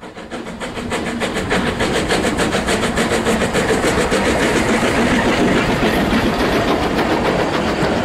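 A Beyer Peacock 2-4-0 tank steam locomotive on 3 ft narrow gauge working a train, its exhaust chuffing in a quick even rhythm of about five beats a second, growing louder over the first second.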